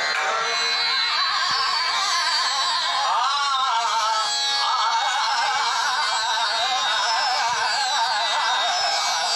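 Hindustani classical singing: a solo voice sings slow, ornamented phrases with sliding pitch over a steady tanpura drone. The voice breaks off briefly about four seconds in, then resumes.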